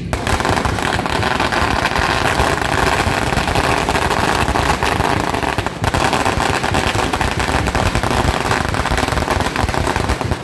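A long string of firecrackers going off on the ground in a dense, rapid, continuous crackle, with a brief break about six seconds in.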